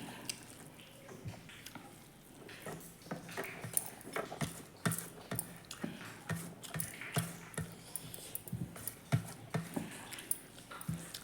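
A person eating close to the microphone: irregular wet chewing clicks and mouth smacks.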